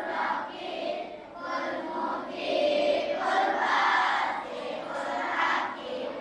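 A group of schoolchildren chanting together in unison, in short repeated phrases.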